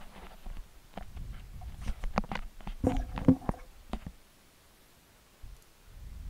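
Scattered clicks and light knocks of small computer-case parts and packaging being handled on a table. They stop about four seconds in, and there is one more click near the end.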